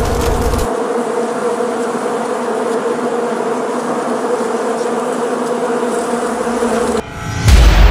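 A swarm of bees buzzing steadily, a dense droning hum that cuts off abruptly about seven seconds in. A sudden loud low boom follows near the end.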